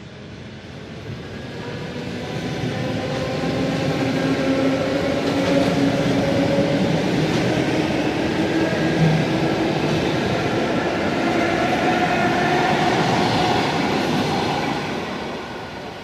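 ET2M electric multiple unit moving past close by, with wheels rumbling on the rails and a traction-motor whine that slowly rises in pitch. The sound swells over the first few seconds, holds, and fades near the end.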